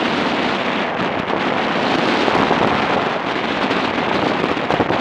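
Wind rushing over the microphone of a camera on a moving motorcycle: a loud, steady rushing noise.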